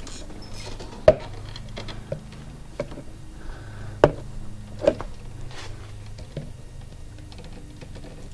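Scattered knocks and clunks as a walk-behind lawn mower is handled and tilted back on the garage floor to drain its oil, the two loudest about a second in and about four seconds in, over a steady low hum.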